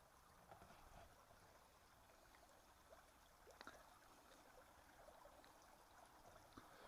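Near silence: a faint steady wash of running water, with a few faint small ticks.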